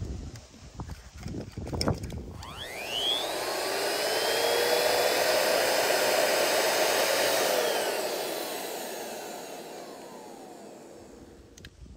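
Small grenade-shaped electric air pump spinning up with a rising whine about two seconds in, running steadily, then winding down in pitch and fading out over the last few seconds as it cuts out. The 600-watt pump is more than the portable battery feeding it can supply, so it fails to keep running.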